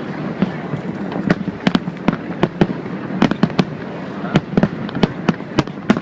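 Fireworks display: a rapid, irregular string of sharp bangs and cracks, a few each second, over a continuous rumbling crackle.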